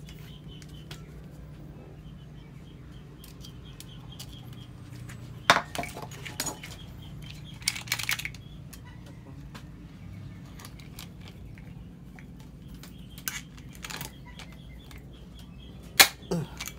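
Hand pop-rivet tool setting rivets in the end cap of a motorcycle exhaust muffler: several sharp metallic clacks and snaps as the handles are squeezed and the rivet stems break, with lighter metal clinks between. The loudest snaps come about five seconds in and near the end.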